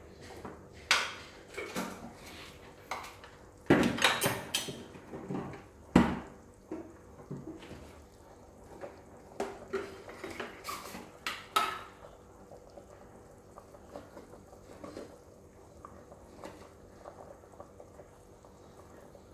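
Kitchen clatter: dishes and metal utensils clinking and knocking in a scattered run of sharp clicks, busiest over the first dozen seconds with the loudest knock about six seconds in, then only faint ticks.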